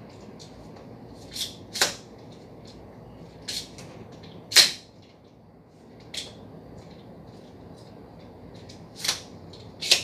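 Plastic vacuum cleaner hose and attachment parts clicking and knocking as they are handled and fitted together. There are about seven short, sharp clicks spread through, and the loudest comes about halfway.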